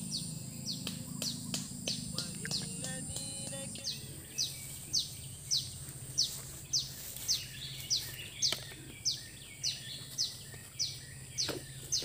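A bird calling over and over in short, high, downward-sliding notes, about two a second, over a steady low hum.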